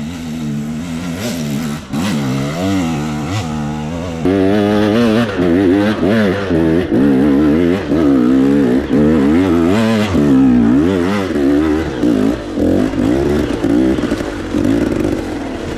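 KTM EXC two-stroke enduro dirt bike engine revving while riding, its pitch rising and falling quickly as the throttle is worked. It gets louder about four seconds in.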